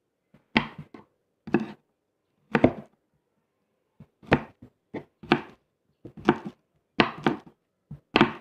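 Kitchen knife chopping green beans on a wooden cutting board: sharp, irregular chops, roughly one or two a second, some coming in quick pairs.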